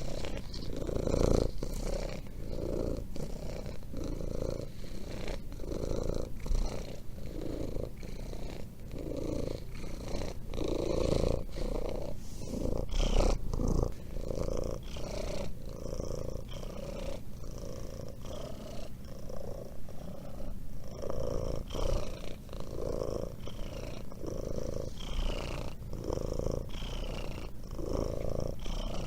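Domestic cat purring close up, steady and rhythmic, swelling and easing with each breath about once a second.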